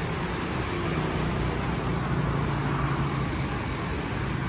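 Steady road traffic noise: vehicle engines running and passing close by.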